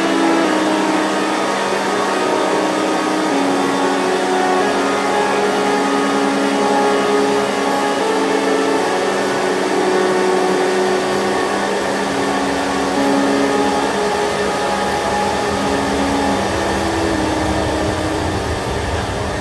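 CNC lathe running a thread-cutting cycle on a buttress thread: a steady motor hum with whine tones that shift pitch every second or two, over a hiss of coolant spray.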